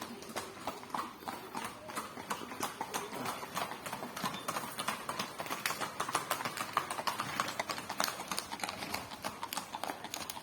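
Horse hooves clip-clopping: a steady, uneven run of hoof strikes from horses being ridden.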